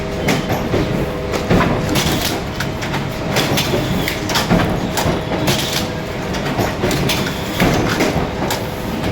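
Automatic strapping machine running after repair: a steady motor hum with a few constant tones, and repeated mechanical clacks roughly once a second.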